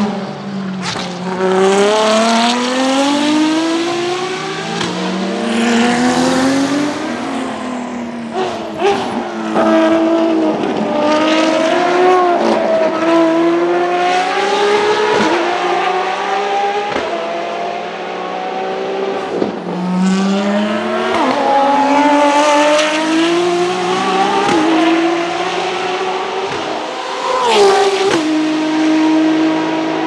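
Ferrari FXX K EVO V12 race engines accelerating hard out of a corner one after another. Each climbs in pitch and drops suddenly at each upshift, and there is a sharp drop in pitch near the end.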